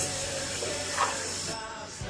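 Portland 1750 PSI electric pressure washer spraying, a steady hiss of the water jet that cuts off about one and a half seconds in.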